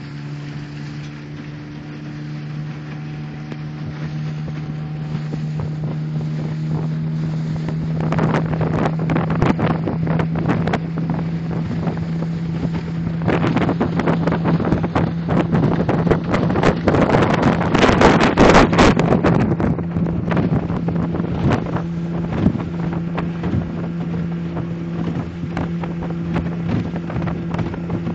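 Small motorboat's engine running steadily under way, with wind buffeting the microphone. The wind noise builds about a third of the way in, is heaviest about two-thirds through, then eases.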